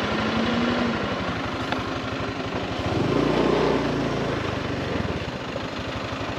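A vehicle's engine running steadily while travelling on the road. A second, deeper drone swells about three seconds in and fades out about two seconds later.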